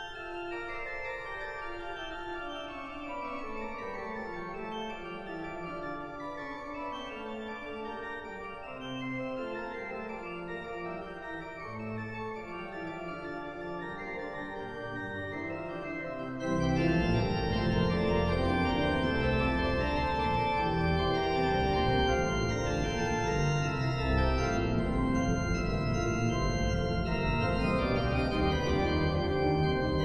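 Organ music. A slow line of held notes steps downward, then about halfway through the full organ comes in much louder with deep bass.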